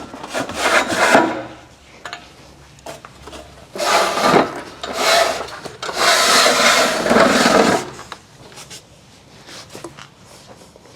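Rubbing and scraping as the drill press's table bracket and toothed rack are slid along the column, in three stretches, the longest lasting about two seconds near the middle.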